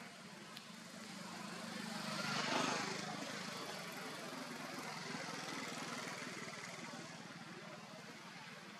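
A motor vehicle's engine passing by: a steady low hum with a broad rush that builds to a peak about two and a half seconds in and then fades slowly.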